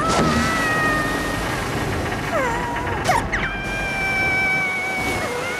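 Cartoon music score with held notes and short sliding notes, over the rushing noise of water gushing from an outdoor tap.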